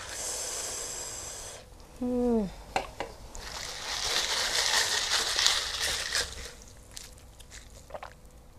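Red carbonated Sting drink poured from a can over ice in a tall glass, hissing for about a second and a half. A short falling vocal sound follows. Then ice clicks and rattles in the fizzing drink as it is stirred with a straw, for about three seconds.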